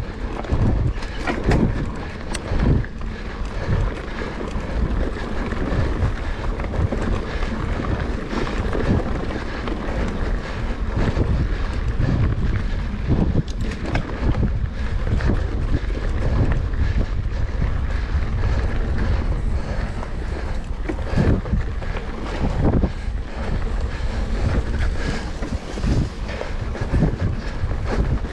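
Wind buffeting the microphone in irregular gusts and thumps over a steady rushing noise.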